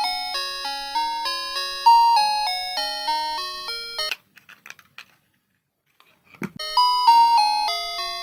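Background music: a melody of short struck notes, each starting sharply and fading. It breaks off about four seconds in for two seconds of near silence with a few faint clicks and a brief thump, then starts again.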